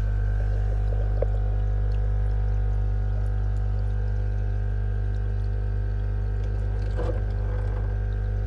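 Aquarium water stirring and lapping as a hand and arm move about inside a fish tank, over a loud steady low hum from the fishroom's pumps. A short burst of splashing comes about seven seconds in.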